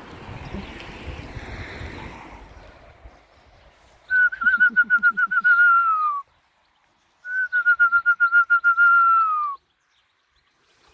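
Two long warbling whistles, each about two seconds, held at one pitch and sliding slightly down at the end: a pigeon fancier's call whistle, coaxing a returned racing pigeon down off the loft roof and inside.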